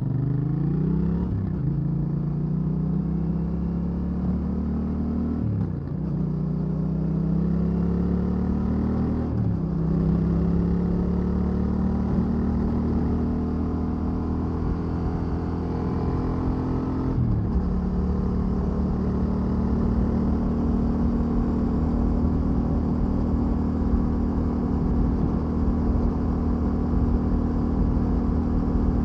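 Yamaha Ténéré 700's parallel-twin engine pulling through the gears under acceleration. Its pitch climbs and drops sharply at four upshifts, the last about two-thirds of the way in, then holds steady at a cruise.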